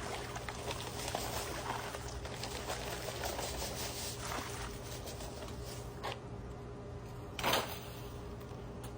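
Water sloshing and trickling, with scattered light crackles and a brief louder rush about seven and a half seconds in.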